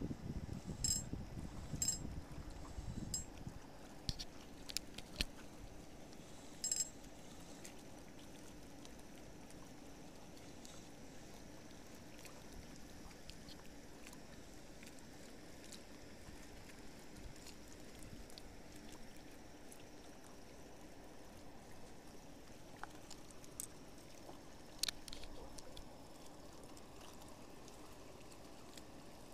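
Faint steady outdoor hiss with a few small sharp clicks and clinks in the first seven seconds and another near the end.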